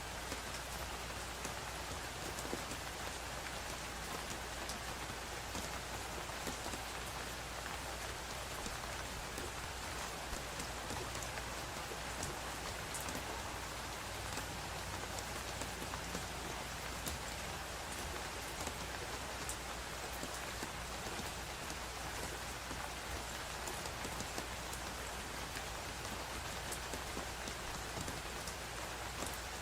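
Steady rain falling, with many small drop ticks over an even hiss and no thunder.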